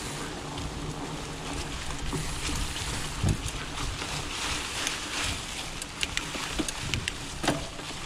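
Trek Farley 5 fat bike rolling along a dirt trail: steady tyre rumble and rustle, with scattered sharp clicks and a few louder knocks from the bike over the ground.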